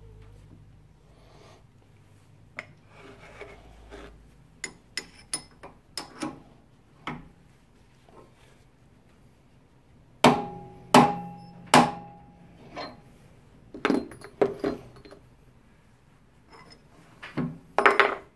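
Brass hammer tapping a steel drift wedge in a drill press spindle slot to knock the Morse taper adapter loose: three sharp, ringing metallic strikes about ten seconds in, then a few lighter taps. Lighter clicks of metal parts being handled and the wedge being set come before.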